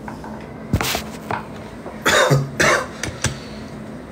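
A man coughing twice in quick succession, about half a second apart, preceded by a sharp click.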